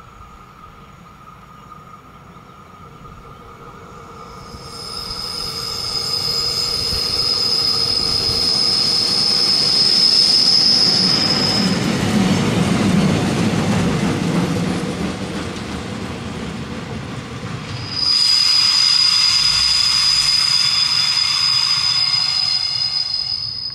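Yellow GAF 100 track-maintenance railcar passing on the rails. Its wheels squeal with a steady high whine as it approaches, then give way to a loud rumble as it goes by. A second steady squeal sets in abruptly a few seconds later and fades out as it moves away.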